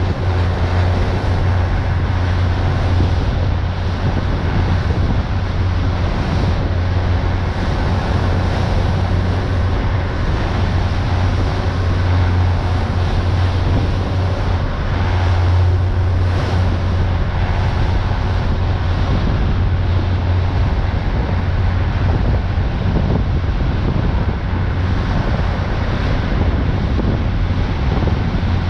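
Pilot boat's engines running steadily at cruising speed, a constant low drone, with wind buffeting the microphone and water rushing past the hull.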